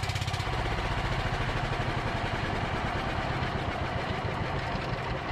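The engine of a small wooden boat running steadily under way, with a fast, even pulse. Its note shifts slightly about half a second in.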